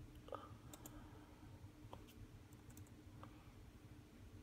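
Near silence: a low steady hum with a few faint, scattered clicks from a laptop's keys or touchpad being worked.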